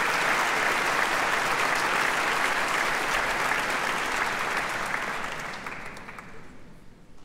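A concert hall audience applauding, the applause dying away over the last two seconds or so.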